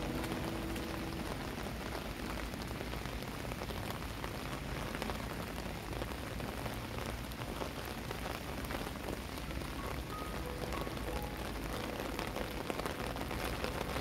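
Steady rain falling on surfaces: a continuous hiss dotted with many small drop hits.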